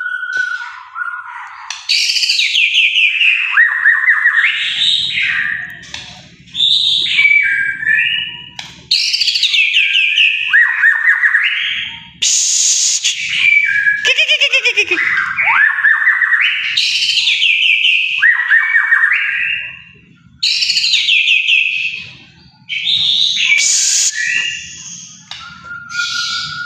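White-rumped shama (murai batu) singing long, varied phrases of loud whistles, sweeping glides and rapid trills, each phrase a few seconds long with short breaks between.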